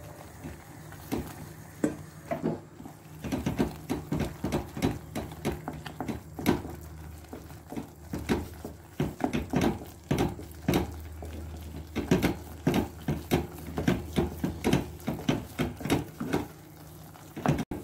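A wooden spoon is stirring and beating thick choux dough in a stainless steel pot, giving irregular knocks and scrapes against the pot, often several a second. The flour is being cooked into boiled butter and water. A low steady hum runs underneath.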